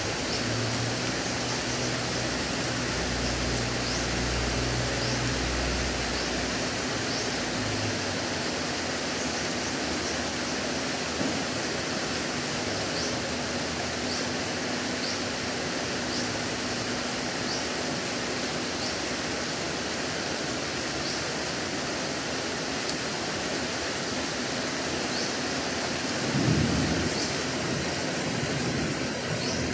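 Heavy rain pouring steadily on foliage and ground. A low rumble sounds through the first several seconds and a louder one swells near the end, with faint high chirps about once a second.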